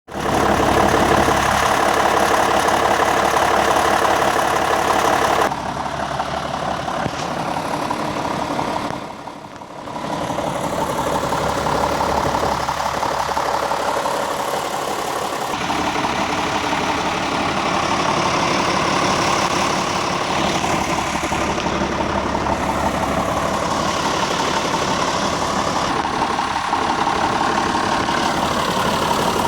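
John Deere 6605 tractor's diesel engine idling steadily. It drops in level about five seconds in and dips briefly near ten seconds.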